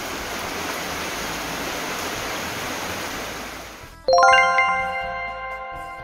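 Steady hiss of heavy rain and running floodwater, fading and cutting off about four seconds in. Then a bright chiming chord of several notes strikes and rings on, the start of music.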